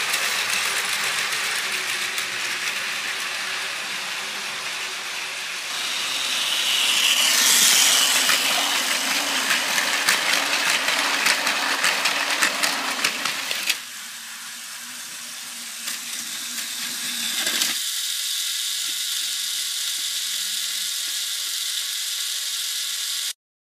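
Battery-powered Plarail toy trains running on plastic track: a steady motor-and-gear whir with fast clicking of wheels over the track joints, swelling as a train passes close about seven seconds in. The sound changes suddenly twice and stops abruptly near the end.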